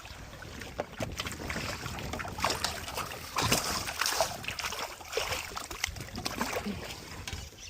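Water sloshing and splashing around a small fishing boat, with scattered knocks and clatter on the boat.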